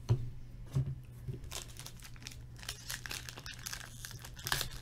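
Trading card pack wrapper crinkling as it is handled and torn open, with a sharper tearing burst near the end. A couple of soft knocks come in the first second as the pack is picked up.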